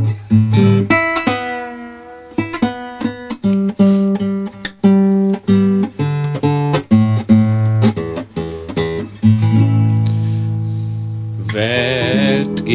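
Classical guitar played solo, plucked chords and single notes ringing out, with some strummed chords. Near the end a man's voice comes in on a held, wavering sung note.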